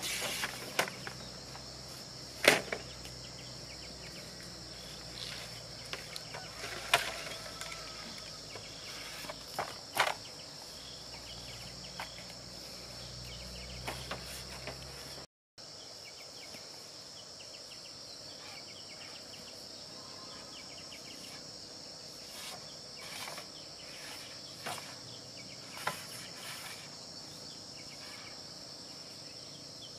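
Steady high-pitched buzzing of insects outdoors, with scattered sharp knocks and snaps over it.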